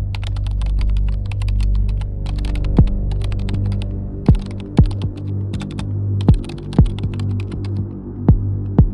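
Rapid keyboard-typing clicks laid over a low droning hum. From about four seconds in, deep double thumps like a heartbeat come about every two seconds.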